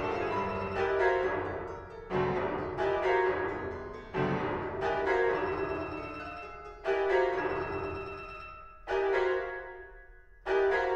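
Piano music: loud chords struck every one to two seconds, each left to ring and fade before the next.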